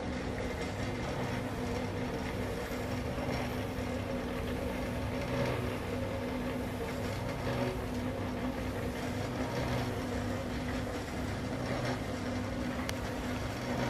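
A machine running steadily with a constant hum and a low rumble beneath, its pitch unchanging.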